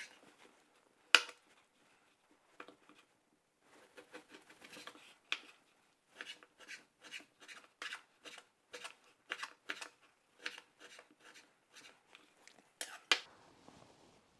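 Chef's knife slicing home-cured guanciale into strips on a wooden cutting board: a steady run of cuts, about two a second, each ending in a tap of the blade on the board, with two louder knocks of the knife on the board, one about a second in and one near the end.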